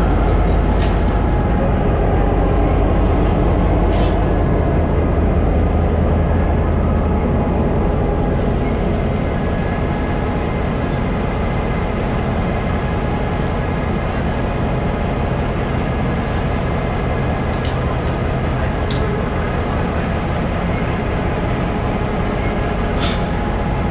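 EMD G22CU diesel-electric locomotive's 12-cylinder two-stroke diesel engine running with a deep, steady rumble, a little louder in the first several seconds and then easing slightly. A few short, sharp clicks or clanks come through over it.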